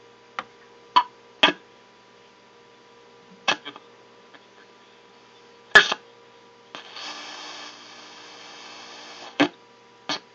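Zenith Circle of Sound clock radio on AM between stations: a faint steady whistle, sharp crackles and clicks at uneven times, and a stretch of static hiss lasting a couple of seconds about seven seconds in. This is weak reception.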